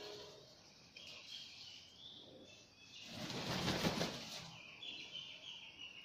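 Sulphur-crested cockatoo flapping its wings: a loud rush of wingbeats lasting about a second, midway through. Faint high-pitched bird calls come before and after it.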